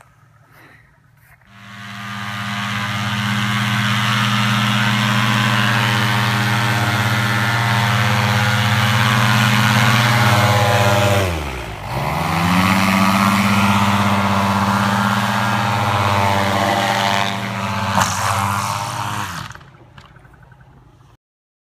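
Paramotor trike's engine and propeller running hard at take-off throttle, a loud steady drone that comes up to speed a second or so in. About halfway through, the engine note drops sharply and climbs straight back up. Near the end there is a single sharp click, then the engine sound falls away.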